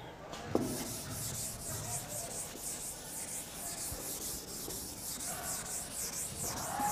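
Chalkboard duster wiping chalk off a chalkboard: a knock as it meets the board about half a second in, then repeated rhythmic rubbing strokes.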